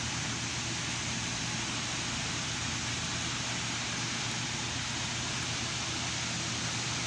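Land Rover LR4 engine running at idle, a steady low hum under an even rushing hiss, while being checked for its rough idle and vibration.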